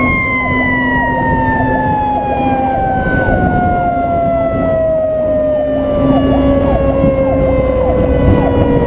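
Fire truck siren slowly winding down, its pitch falling steadily the whole way, over the rumble of the moving truck and road noise.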